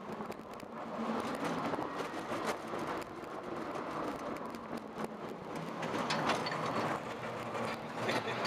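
Colossus wooden roller coaster train rolling along its track: a steady rumble with scattered clicks.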